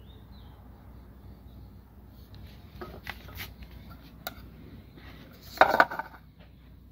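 Handling noises: a few light clicks, then a short, loud clatter about five and a half seconds in. Faint bird chirps run through the first half.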